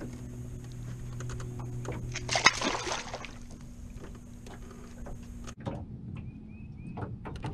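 A small blue catfish splashing into the river as it is released over the side of the boat: one short splash about two and a half seconds in. Under it a steady low hum runs and cuts off suddenly about five and a half seconds in.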